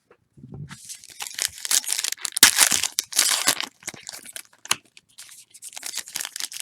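Trading-card packaging (foil pack wrappers or box wrap) being torn open and crinkled by hand: a run of rustling tears, then scattered sharp clicks and more crinkling near the end.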